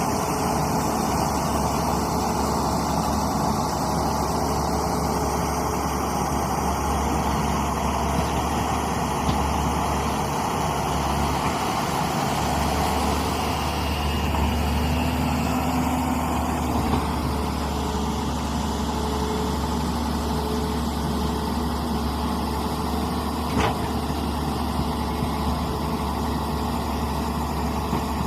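Tata Hitachi EX210 crawler excavator's diesel engine running steadily, with one sharp click about three quarters of the way through.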